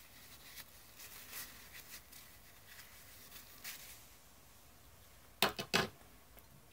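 Faint rustling of a tissue wiping a handheld pH tester, in a few short strokes. About five and a half seconds in, a quick cluster of sharp knocks or clicks.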